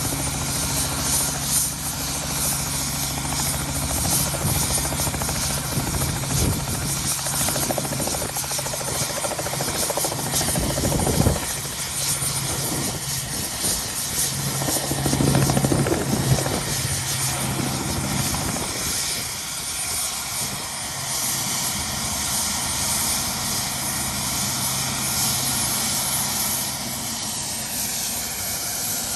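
Tour helicopter running: a steady rush of turbine and rotor noise with a low hum under it, and the hum drops away near the end.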